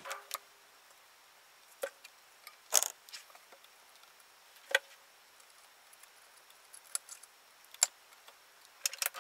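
Screwdriver and screws on a steel front panel as it is being unscrewed: a handful of small metallic clicks and taps spread irregularly over several seconds.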